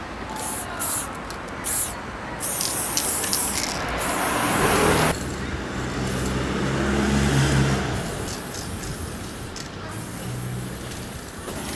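Aerosol spray-paint can hissing in short bursts onto a wall stencil. About five seconds in, an abrupt cut gives way to street traffic with a car engine's steady low hum.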